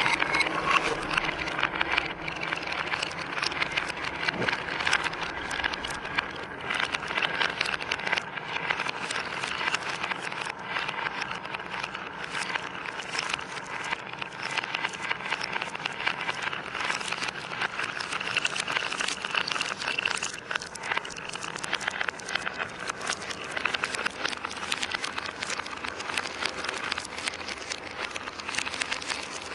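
Many marbles rolling and clattering down a marble run track: a continuous dense rattle of small clicks and knocks.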